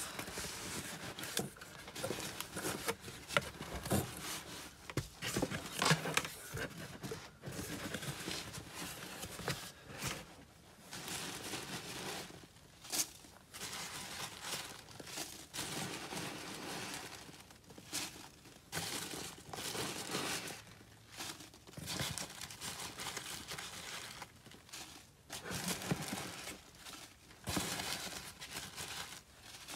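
Hands rummaging through a cardboard box full of foam packing peanuts, with irregular rustling and crinkling of the peanuts and of clear plastic bags as the packed items are shifted and pulled out, broken by short pauses.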